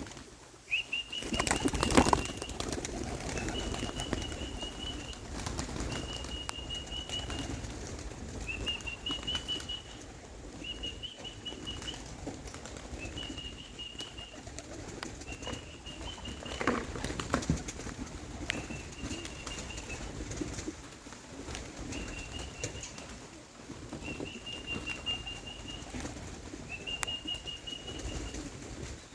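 Young racing pigeons flapping their wings around the loft as they are fed, over a steady rustle. A short, high, even note repeats about every two seconds, and there are two sharp knocks, the louder one about two seconds in.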